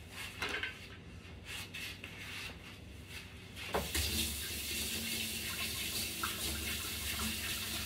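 A few light knocks, then about four seconds in a kitchen sink tap comes on and water runs steadily into the sink.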